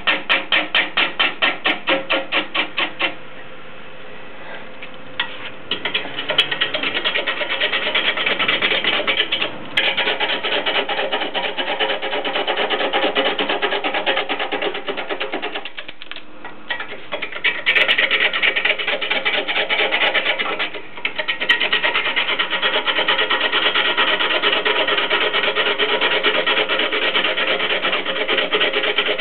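Turning gouge cutting into a large wooden blank spinning on a wood lathe. For the first three seconds the cut comes as a fast, regular chatter of about five beats a second. It then turns into a continuous rough scraping, easing off briefly twice along the way.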